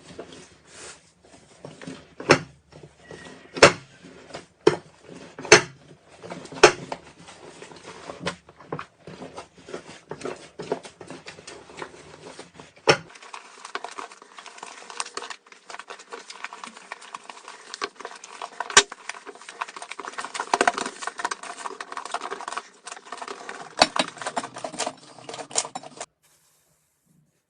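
Slime being squished and pressed by hand, with sharp pops and clicks from trapped air; about halfway through it changes to a denser, continuous crackling, and it stops a second or so before the end.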